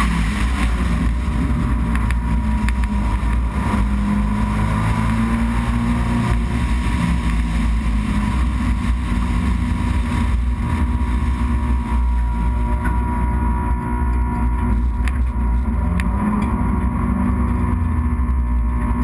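Race car engine running at low, shifting revs as the car rolls slowly, with a steady low rumble underneath. The sound grows duller about two-thirds of the way through.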